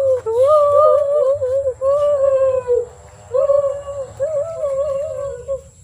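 A child's high-pitched, wordless vocalizing, a wavering hum-like chant in long phrases, with a short break about three seconds in.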